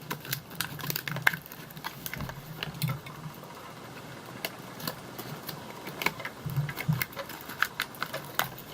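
Small plastic toy pieces and packaging being handled, giving scattered light clicks and taps, some in quick clusters.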